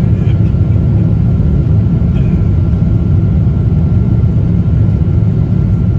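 Steady low roar of engine and airflow noise inside the cabin of a Boeing 777-200 on approach with flaps extended, with a faint steady high whine running through it.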